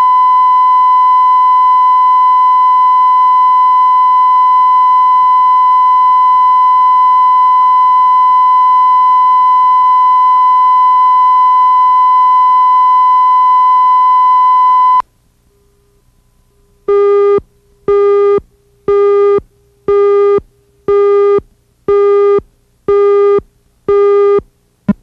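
Steady 1 kHz reference tone from a videotape's lead-in, recorded hot enough to distort, cutting off sharply about fifteen seconds in. After a short pause come eight short, lower-pitched beeps about one a second, a countdown to the start of the programme.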